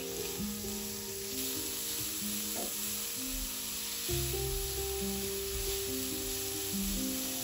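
Background music of held notes changing pitch step by step over a steady hiss, with deeper bass notes coming in about four seconds in.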